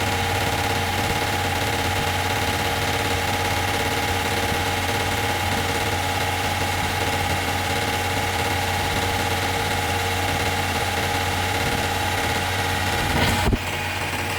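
Steady hum of running machinery: a constant drone with a few held tones, which changes abruptly near the end.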